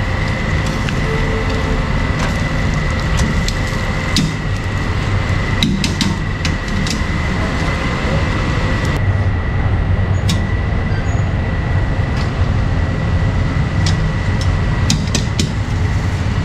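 Busy street-market ambience: a steady low rumble of passing traffic, with scattered sharp knocks and clicks at irregular intervals.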